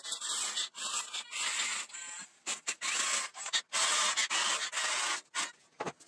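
Small electric gear motors of 1/24-scale Diecast Masters RC construction models whirring in short stop-start bursts, with a gritty scraping of dirt and gravel.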